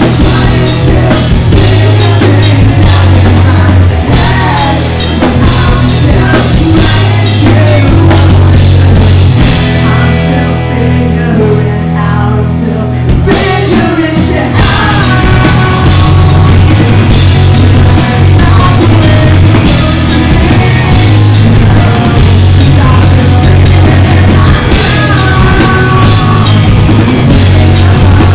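Live rock band playing loud: electric guitar, bass and drum kit with a male singer. Near the middle the band drops to a sparser, quieter passage for about three seconds, then the full band comes back in.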